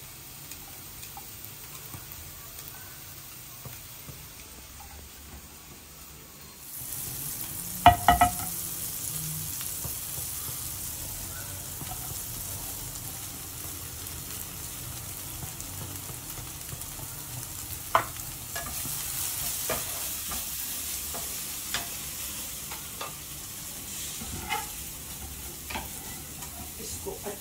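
Butter and shredded chicken sizzling in a non-stick frying pan while a spatula stirs and scrapes through it. The sizzle grows louder about seven seconds in, with a loud knock just after and light clicks of the spatula against the pan.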